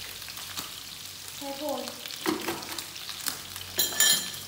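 Pork ribs sizzling as they fry in a pan, with scattered small clicks. Near the end there is a bright ringing clink.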